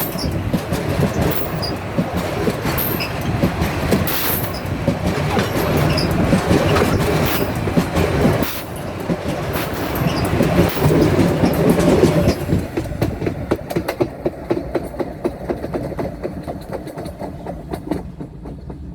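Loaded freight wagons rolling over the rails directly overhead, their wheels clattering over the rail joints in a steady run of clicks. The rumble fades from about twelve seconds in, leaving fainter wheel clicks near the end.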